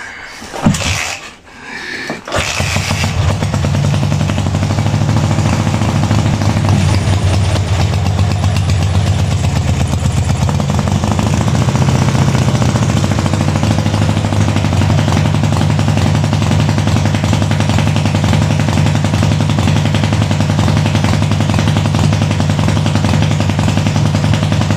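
Dnepr motorcycle flat-twin boxer engine starting about two seconds in, then running steadily. It is on a test run in a bench rig with no control cables or throttle grip, worked by hand at the carburettor.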